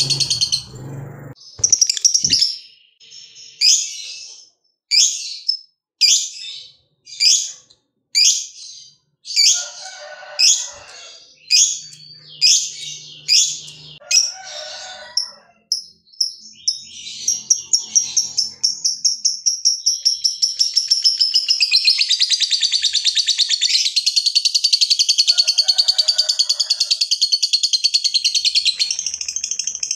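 Pet lovebird calling. It starts with sharp, shrill chirps about once a second, then about halfway through breaks into a long, fast, unbroken chattering trill, the prized 'ngekek panjang' song, which runs until near the end.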